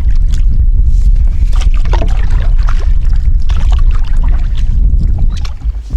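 Canoe paddling: water splashing and trickling off the paddle in repeated strokes, with a few light knocks. Under it, a steady low rumble of wind buffeting the microphone.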